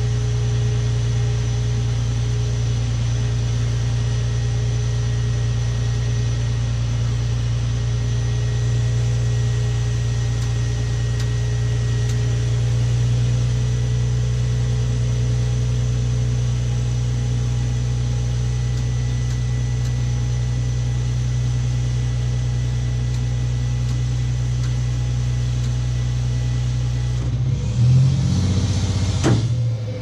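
Truck engine running steadily to drive the boom truck's hydraulic PTO pump, heard from inside the crane cab as a low hum with a faint steady whine. Near the end the sound lurches and shifts: the PTO kicking out, a fault the operator suspects is a bad sensor or transmission problem.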